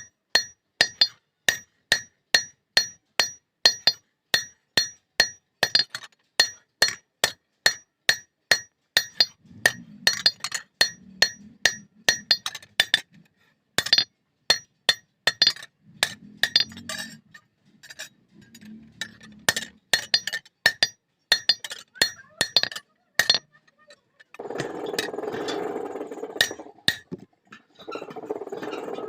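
Blacksmith's hammer striking a blade on an anvil while forging a katari, a steady run of about two ringing blows a second with a few short pauses. A steady noise takes over in the last few seconds.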